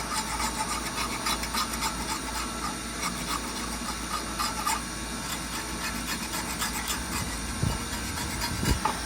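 Pocket knife blade scraping caked grass crud off a steel lawnmower blade: quick, irregular scratchy strokes.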